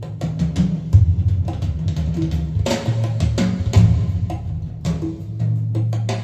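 Recorded jazz-blues music with a drum kit and a deep bass line, played back through Jamo S606 loudspeakers.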